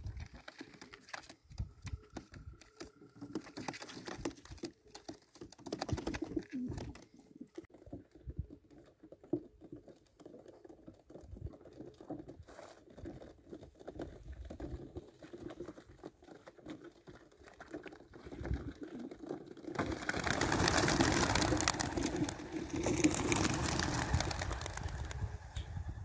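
Male racing pigeons cooing and shifting in wooden transport crates, with scattered light taps and clicks. About twenty seconds in, the crates are open and the flock takes off with a loud, dense clatter of wings.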